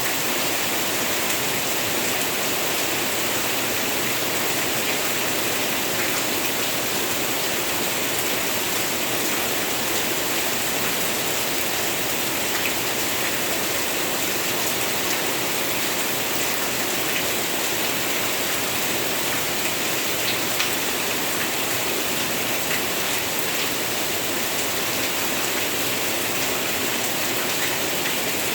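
Steady heavy rain falling, an even hiss with occasional faint drop ticks.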